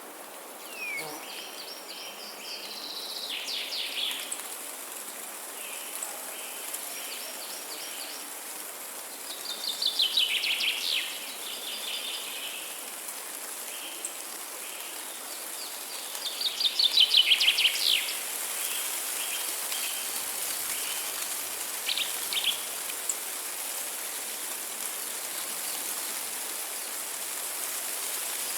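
Songbirds singing: a fast trilled phrase comes three times about seven seconds apart, the loudest about two-thirds of the way through, with shorter repeated chirps between, over a steady high hiss.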